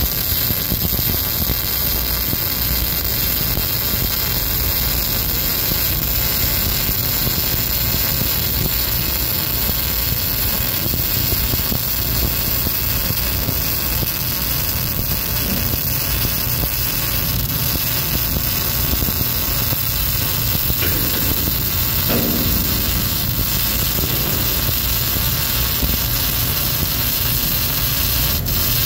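Electric arc welding running a continuous bead along a steel seam: a steady hiss from the arc with no breaks.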